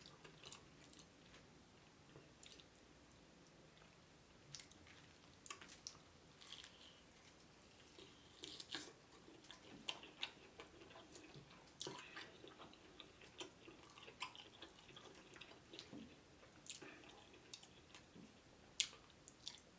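Faint chewing of Chinese fried chicken wings, with irregular soft clicks spread throughout.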